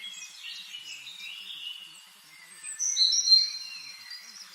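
Birds singing, several chirps and trills overlapping, with a louder run of clear whistled notes about three seconds in.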